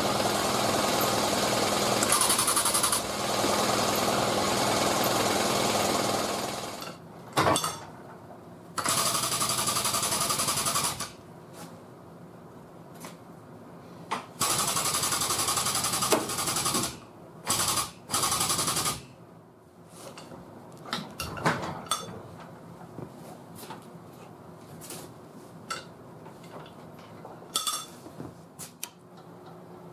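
Frame-pulling equipment running in bursts of loud, fast rattling: a long run of about seven seconds, then three shorter bursts, followed by a few light clicks and knocks.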